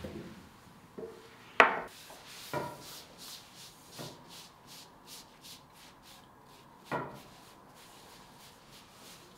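Thin baklava dough handled on a marble table with a long wooden rolling pin: soft rubbing and rustling of the floured sheets, broken by a few sharp knocks. The loudest knock comes about one and a half seconds in, and there is another near the middle.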